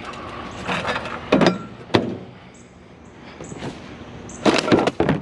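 Knocks and clatter of curbside scrap being handled, a few sharp hits with the loudest just before two seconds in and a cluster near the end.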